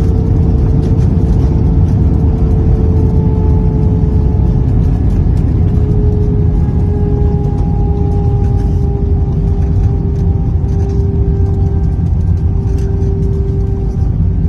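Airbus A320 jet noise: a loud, steady rumble with a thin whine that sinks slowly in pitch.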